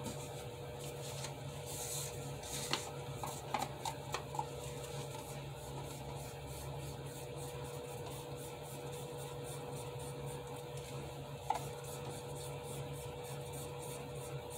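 Steady low electrical hum, with a few light clicks and taps of plastic paint cups being handled, three close together about three to four seconds in and one more near the end.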